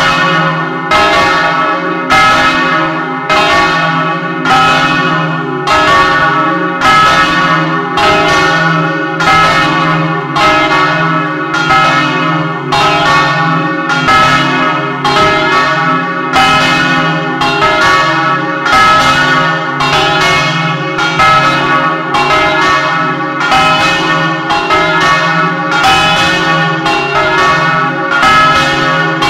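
Several church bells swinging and ringing together in an electrically driven doppio peal, heard at close range inside the belfry. The strokes come in a steady, unbroken stream of about two a second, while the bells' low hum rings on underneath.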